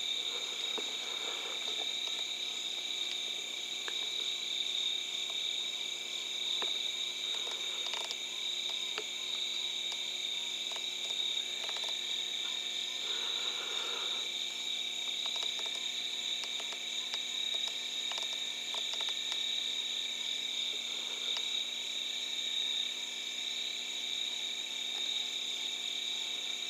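Steady night chorus of insects such as crickets, a continuous high-pitched trilling at several pitches without breaks.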